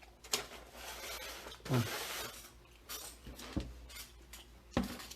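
Takeout food containers and utensils being handled: scattered clicks and knocks with bits of plastic rustling.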